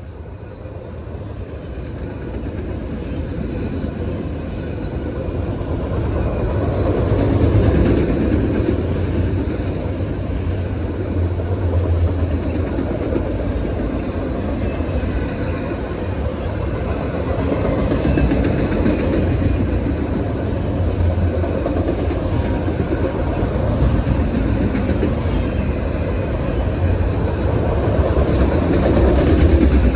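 Train passing close by, a steady rumble with the clatter of wheels on rail joints. It grows louder over the first several seconds, then holds loud.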